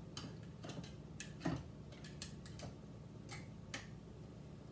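Scattered light ticks and taps, about eight, of a plastic bubble-removing stick knocking against glass canning jars as it is worked down among raw-packed chicken legs to free trapped air pockets.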